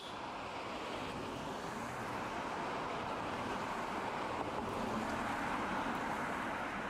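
Road traffic: a car passing on the road, its tyre and engine noise building steadily and peaking about five to six seconds in.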